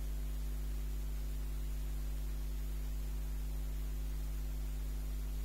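Steady low electrical mains hum with a faint even hiss; no stirring, scraping or sizzling stands out above it.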